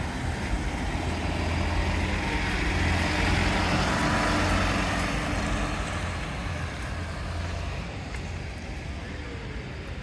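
Police vehicle driving past close by: engine hum and tyre noise swell to a peak about three to four seconds in, then fade away.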